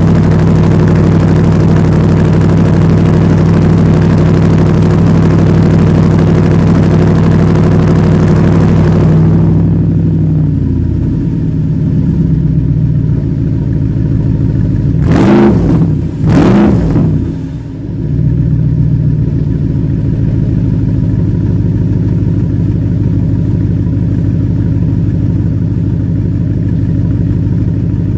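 Audi R8 4.2 V8 with a Milltek cat-back exhaust running at a fast, loud cold-start idle that steps down to a lower idle about ten seconds in. About five seconds later come two quick revs, each rising and falling, before it settles back to a steady idle.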